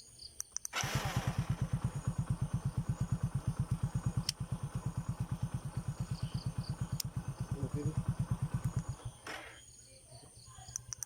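Hero Honda CD Deluxe's single-cylinder four-stroke engine, started by a newly fitted remote-start system, catches about a second in and idles with an even beat of roughly eight pulses a second, then is cut off near the end.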